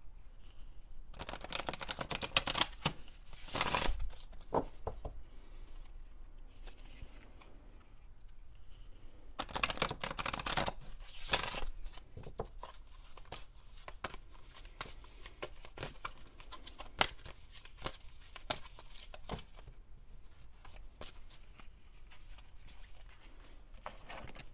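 A deck of oracle cards being shuffled by hand, a rapid run of card clicks and slaps, in two main bouts, one from about a second in and another just before the middle, with scattered lighter card flicks between.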